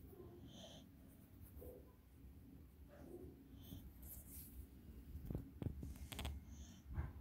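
A dozing beagle breathing softly through its nose, with a faint high whistle about every three seconds. Rustling and a few knocks from handling near the end.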